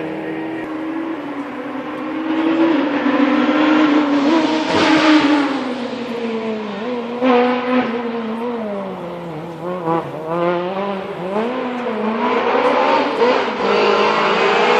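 Rally car engine driven hard through the gears, its note repeatedly climbing and dropping with gear changes and lifts. It is loudest about five seconds in, with quick throttle blips around ten seconds in.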